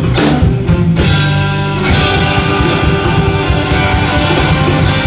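Live rock band playing an instrumental stretch, electric guitar prominent over bass and drums, with a bright cymbal-like wash filling in about two seconds in.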